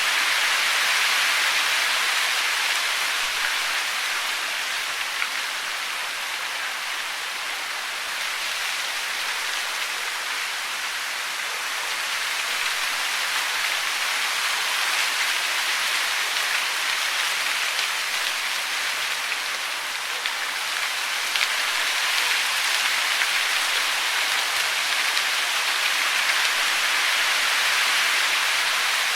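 Steady hiss of falling water, even and unbroken, swelling and easing slightly in loudness.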